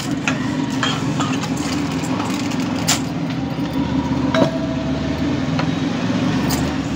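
A steady low mechanical hum like an idling engine, with a few light clicks and knocks over it.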